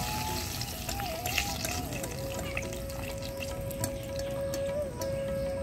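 Fried chicken legs crackling faintly in hot oil in a wok as they are lifted out with a wire skimmer, with scattered small clicks. Over it, a single note of background music wavers in pitch, then holds steady from about two seconds in.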